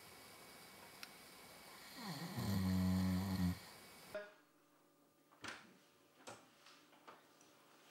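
A sleeping man snoring: one loud, low, pitched snore lasting just over a second, about two seconds in. It is the heavy habitual snoring that keeps his partner awake. After it the background falls away and a few faint clicks sound.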